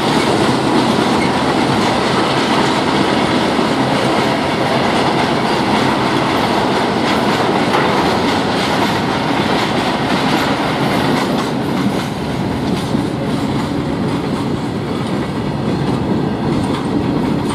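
Freight train wagons rolling past close by, their steel wheels clattering over the rail joints in a steady clickety-clack.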